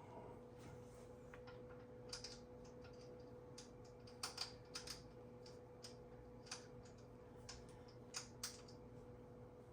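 Faint, irregular light clicks and taps of statue pieces being handled and fitted together, over a faint steady hum.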